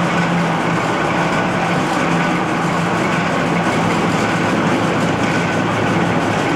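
Marvel Series 8 Mark I tilt-frame vertical band saw running steadily with its blade turning: an even machine hum with a constant low drone.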